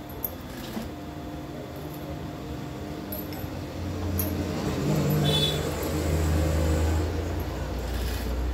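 Sewing machine stitching a gathered fabric frill, running louder from about halfway through until near the end. A light clink comes near the start.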